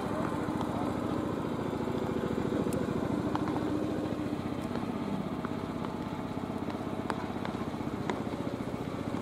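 A small engine running steadily, with a fast even pulse. A few faint sharp clicks are scattered through it.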